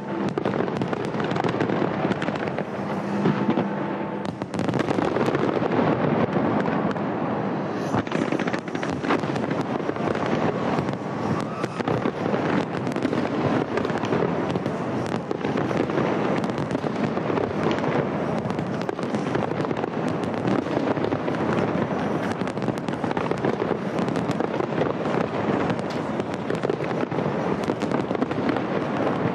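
Large fireworks display going off in a dense barrage: rapid overlapping bangs and crackling with no break.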